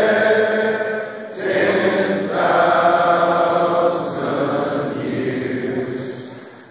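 A large crowd of men singing a congregational hymn together in long held notes, with a short breath break a little over a second in and the phrase fading away near the end.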